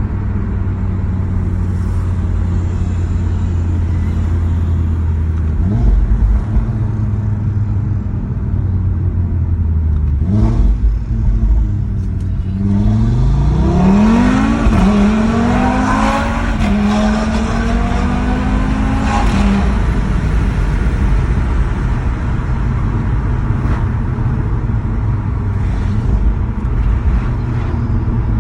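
Audi RS3 8V.2's turbocharged 2.5-litre five-cylinder engine and exhaust idling steadily, with two short rev blips about 6 and 10 seconds in. Around halfway through it revs up in a rising climb, holds at higher revs for several seconds, then drops back to idle.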